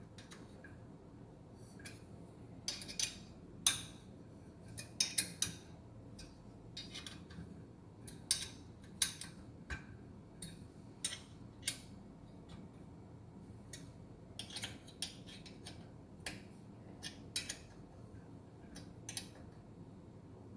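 Irregular metallic clicks and clinks of hand tools and bolts as covers are fastened onto the motorcycle, some coming in quick little clusters.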